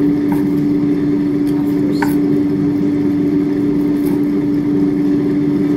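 Air fryer's fan motor running with a steady hum: one held tone over a low whirr. A few light knife taps sound on a wooden cutting board as conch meat is sliced.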